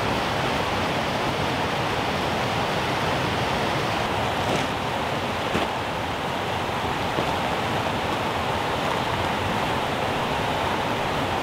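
Creek water rushing steadily over a small waterfall.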